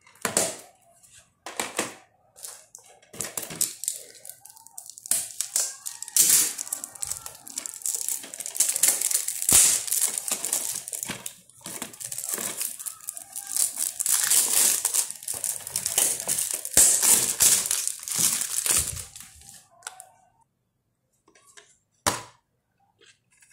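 Clear plastic shrink-wrap being torn and peeled off a DVD case: irregular crinkling and crackling that is busiest in the middle. It dies away for the last few seconds, with one sharp click near the end.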